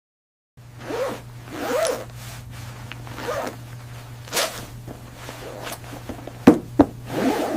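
Jacket zipper being zipped and unzipped in a series of quick strokes, with two sharp clicks about a second before the end.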